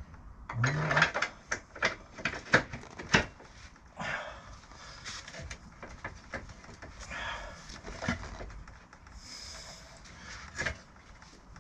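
Sharp knocks and clunks of metal parts being worked and tapped into place while refitting a motorcycle wheel: a quick run of knocks in the first three seconds, then a few scattered knocks and scrapes.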